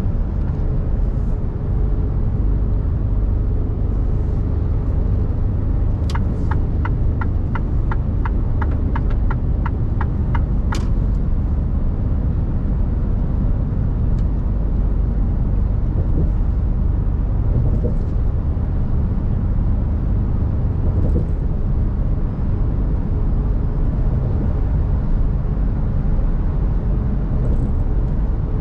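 Steady low rumble of a Mercedes Actros truck cruising at motorway speed: engine and tyre noise heard inside the cab. About six seconds in, the turn-signal indicator ticks about three times a second for about five seconds, ending with a sharper click.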